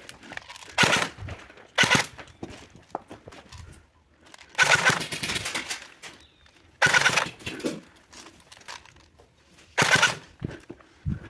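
Airsoft electric gun (AEG) firing five bursts on full auto, close by. The bursts are short ones of under half a second and longer ones of about a second, each a rapid stream of shots.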